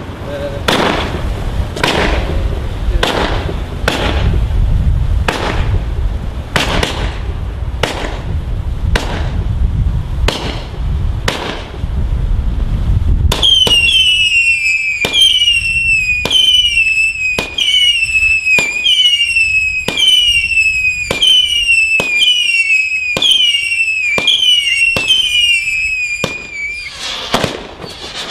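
A 150-shot firework barrage cake firing a steady string of shots, about one and a half a second, over a low rumble. From about halfway each shot carries a whistle that falls in pitch, one after another. Near the end the shots come faster and denser.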